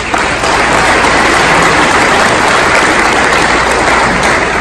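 Audience applauding, starting suddenly and holding steady for about four seconds before tapering off near the end.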